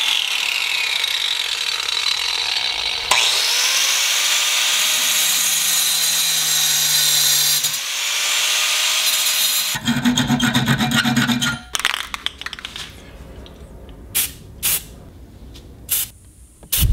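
Small cordless cut-off tool with a thin abrasive wheel grinding through a steel mounting bracket clamped in a vise: a loud, steady grinding whine that stops and restarts about three seconds in, then runs rougher around ten seconds. Near the end come a few short hissing bursts from a spray paint can.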